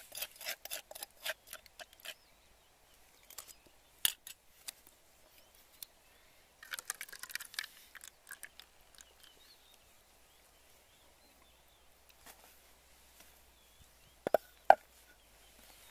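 Light clicks and taps of utensils against a ceramic plate as chili sauce is poured onto it, busiest at the start and again about halfway through, with two sharper knocks near the end.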